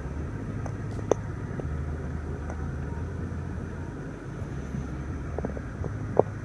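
BMW 650i's twin-turbo V8 idling, a steady low hum heard inside the cabin, with two short clicks about a second in and near the end.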